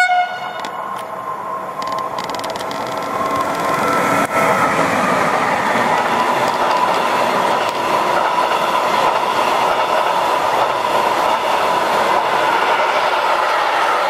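An electric freight locomotive, a Siemens Eurosprinter ES64F4, ends a short horn blast right at the start: the Rp1 'attention' warning. It then passes close at speed. The sound swells over about four seconds as the locomotive goes by, and then the long train of intermodal wagons rolls past loud and steady.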